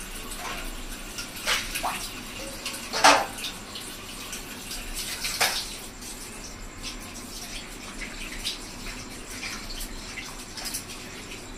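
Running water with splashing, and three sharper splashes or clatters about one and a half, three and five and a half seconds in, the middle one the loudest.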